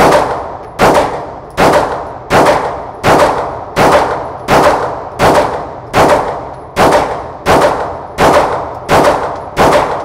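Glock 17 Gen5 9mm pistol fired unsuppressed in steady slow fire: about fourteen sharp shots, a little more than one a second. Each shot echoes off the walls of an indoor range.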